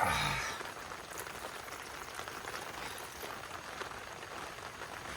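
Steady rain hiss, with a short louder rush at the very start that fades over about a second.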